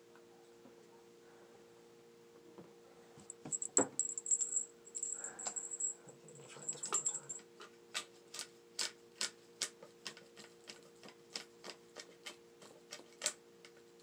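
Paintball gun parts being handled: rattling and scraping, then a steady run of sharp clicks about two to three a second, over a faint steady hum.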